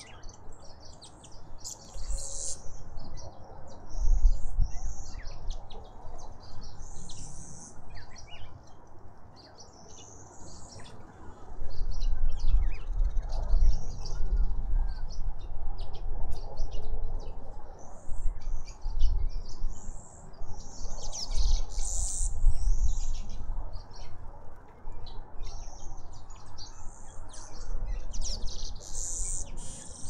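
Birds chirping and calling, many short high calls one after another with hardly a break, over a low rumble that comes and goes and is strongest from about twelve seconds in.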